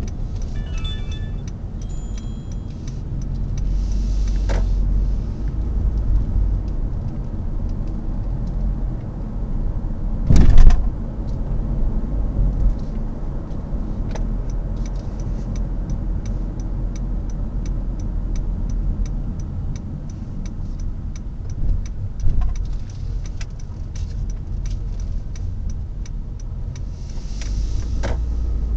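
Car driving, heard from inside the cabin: a steady low rumble of engine and tyres on the road, with a loud thump about ten seconds in and a few smaller knocks later.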